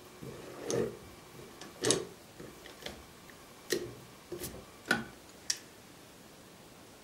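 Hand-operated jar-seaming tool being turned around a tin lid on a glass jar, crimping the lid onto the rim: a run of sharp metallic clicks and short scrapes, about one a second, stopping a little over five seconds in as the seal is finished.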